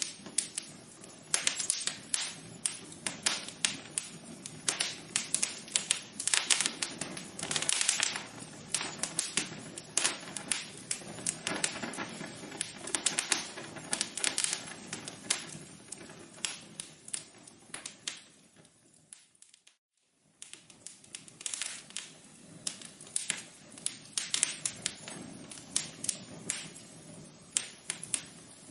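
Wood fire crackling in a fireplace, with dense, irregular pops and snaps. About two-thirds of the way through it fades away to silence for about a second, then comes back.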